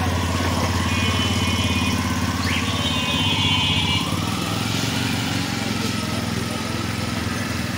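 Busy street traffic: a steady engine hum with cycle rickshaws passing. A short, high-pitched ringing comes about a second in and again around three seconds in.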